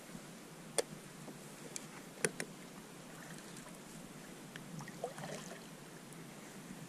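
Fishing kayak afloat with water lapping quietly at the hull, broken by a few sharp knocks of gear or paddle on the hull, the loudest a little after two seconds in, and a brief splashing about five seconds in.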